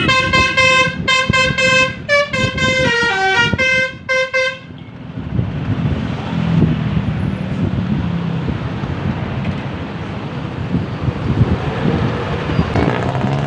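A bus's telolet basuri horn playing a short tune: a few held notes with breaks between them, then a quick run of notes stepping downward, stopping about four and a half seconds in. After that comes the rumble of the bus's engine and tyres as it drives on.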